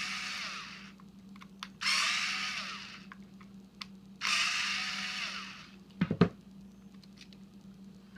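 Cordless drill-driver running in short bursts, each spinning down with a falling whine, backing the screws out of a plug housing. A few sharp knocks follow about six seconds in.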